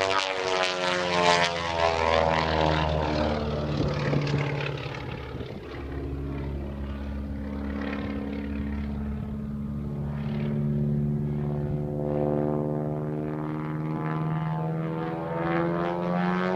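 Propeller-driven aerobatic airplane's piston engine running as it flies past. Its note falls over the first few seconds, then climbs slowly for the rest of the time.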